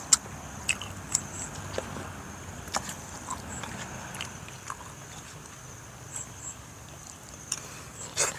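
Eating sounds: a metal spoon clicking against a small sauce bowl and scraping through food on a banana leaf, with chewing. Sharp clicks come every second or two over a steady high-pitched drone.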